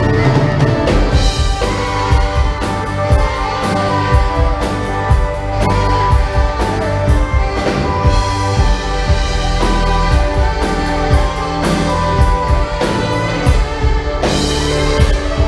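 Live band playing amplified music: drum kit with electric guitars, the drums keeping a steady beat under held notes.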